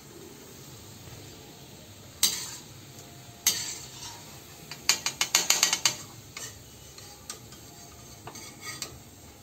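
Steel slotted spoon clinking against an iron kadhai as fried pakodas are lifted out of the hot oil. There is a sharp clink about two seconds in and another a second later, then a quick run of about eight taps around the five-second mark, over faint sizzling of frying oil.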